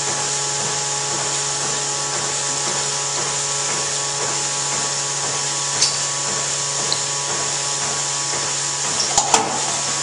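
Milking-parlour vacuum system running with a steady mechanical hum and hiss. A light click comes about six seconds in, and a few short knocks come near the end.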